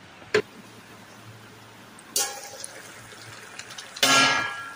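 Stainless steel wok lid: a short clink about half a second in, then about four seconds in the lid is lifted off the wok with a loud metallic scrape and ring.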